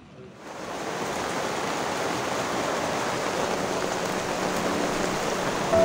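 Heavy cloudburst downpour falling steadily as an even hiss, starting about half a second in.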